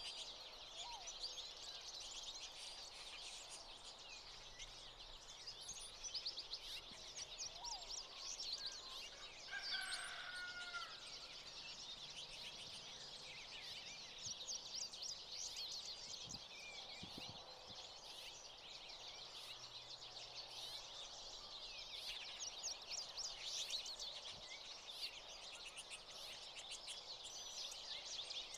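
A flock of American goldfinches twittering steadily in a thick chorus of high, thin chirps. About ten seconds in, a single lower, drawn-out call from another animal rises above them.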